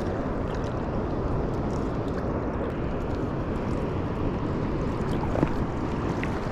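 Steady rush of flowing river water, with wind rumbling on the microphone. A single short knock about five seconds in.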